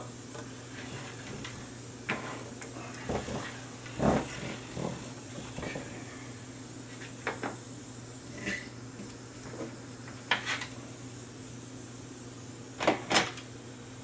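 Scattered small clicks and knocks of hands picking up and setting down tools and parts on a workbench, with two sharper knocks close together near the end, over a steady low hum.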